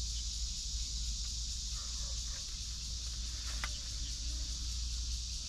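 Steady high-pitched chorus of kuliglig, cicadas, with a low rumble underneath and a single faint click a little past halfway.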